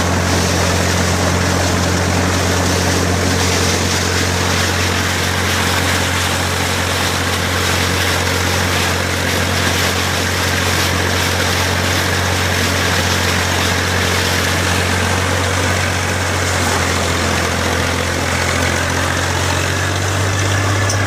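IMT 533 tractor's diesel engine running at a steady speed, with a small change in its tone near the end.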